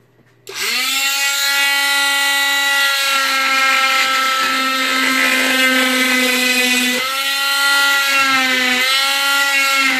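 Oscillating cast saw switched on and cutting through a leg cast, a loud steady whine. It starts about half a second in, and its pitch dips briefly twice near the end as the blade bites into the cast.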